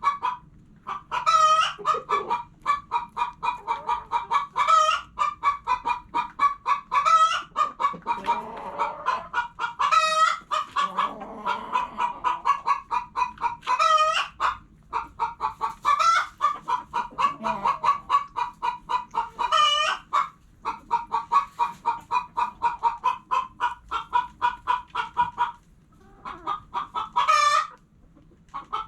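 Hens clucking in a fast, steady run of short clucks, with a louder squawking call breaking in every few seconds. There is a brief lull near the end.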